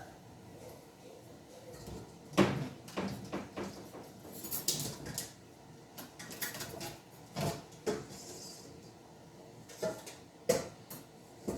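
Kitchen cupboard and dishes being handled as a mixing bowl is got out: a string of separate clunks and clatters, with a brief rustle about five seconds in.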